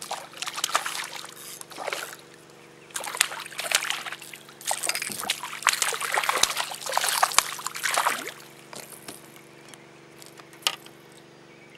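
A hooked Australian bass splashing and thrashing at the surface beside a kayak as it is brought in and landed, in several irregular bursts over about eight seconds. A faint steady hum runs underneath.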